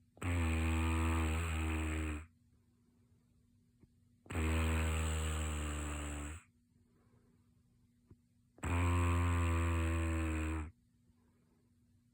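A person snoring: three long snores, each lasting about two seconds, coming evenly about every four seconds.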